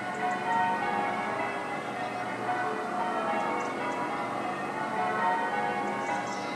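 Several church bells ringing in a continuous peal, their strikes overlapping so that the ringing never stops.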